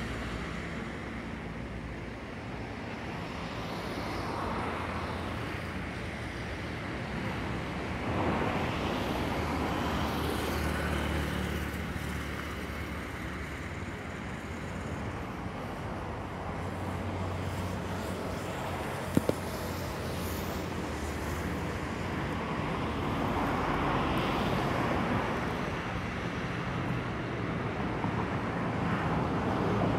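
Road traffic on a busy avenue, cars swelling past every few seconds over a steady low engine hum. One short sharp click a little past halfway.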